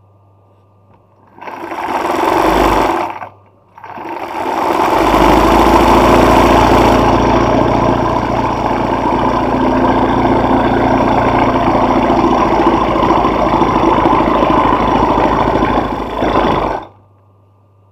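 Sewing machine stitching an embroidery motif: a short run of about two seconds, a brief stop, then a long steady run of about thirteen seconds that cuts off near the end. A faint low hum sits underneath when the machine is not stitching.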